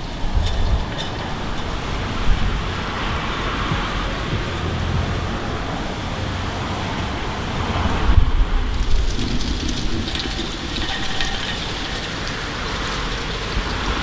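Storm wind gusting through trees, a steady rushing noise with low buffeting on the microphone, swelling with a stronger gust about eight seconds in.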